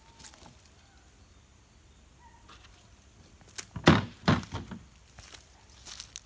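Footsteps on dry leaf litter and twigs on a forest floor: a run of four or five loud steps about four seconds in, and a couple of softer ones near the end.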